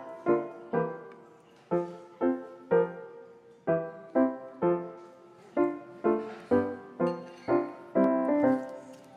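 Background piano music: a slow, gentle tune of notes and chords, each struck and left to fade.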